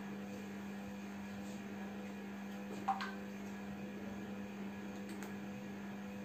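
A steady low hum, with one brief faint click about three seconds in.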